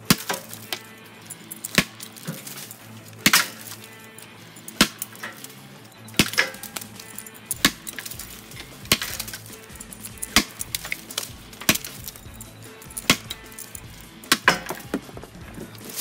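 Hatchet blade of a Zippo 4-in-1 Woodsman chopping into a thick standing tree trunk: about a dozen sharp whacks at a steady pace of roughly one every one and a half seconds, the blade biting deep into the wood.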